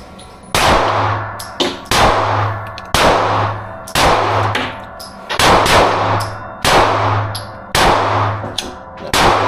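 Subcompact Glock pistol in .45 ACP firing full metal jacket rounds, a slow string of about eight shots roughly a second apart, each shot ringing out and fading before the next.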